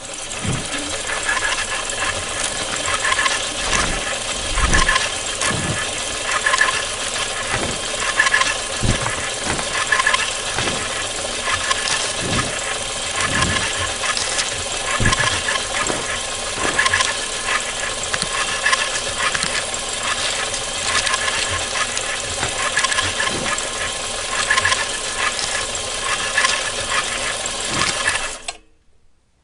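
Vintage film projector running: a steady fast mechanical clatter with hiss and scattered low pops, cutting off suddenly near the end.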